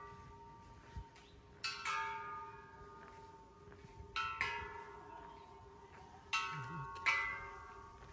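Hanging metal chimes ringing at irregular moments, about six clear strikes in all, each ringing out in several overlapping tones and fading before the next.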